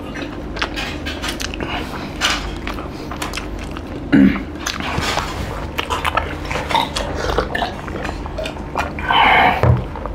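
People eating by hand: chewing and mouth smacks, with many small clicks of fingers and food against steel plates. A short low mouth sound comes about four seconds in, and drinking from a glass follows in the second half.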